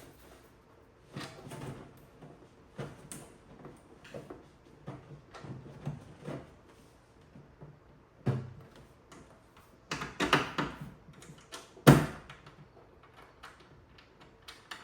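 Hand-work noise of a battery cable being fastened in place inside a plastic case: scattered clicks, taps and rustles, busier towards the end, with one sharp knock about twelve seconds in.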